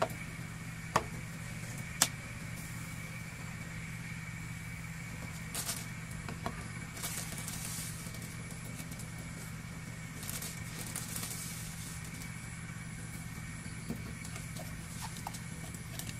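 Small handling sounds at a clay mortar during sauce-making: two sharp knocks about one and two seconds in, then a few soft rustling hisses and light ticks. A steady low hum with a faint high whine runs underneath.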